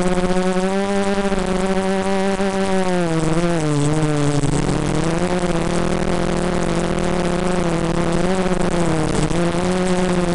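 A Turnigy mini quadcopter's brushless motors and propellers whine in flight. The pitch rises and falls with the throttle and dips for a moment a few seconds in.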